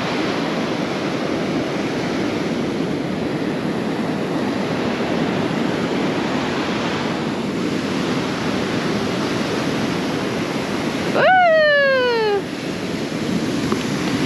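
Gulf surf breaking on the beach, a steady wash of wave noise. About eleven seconds in, a short vocal cry rises sharply and then slides down in pitch.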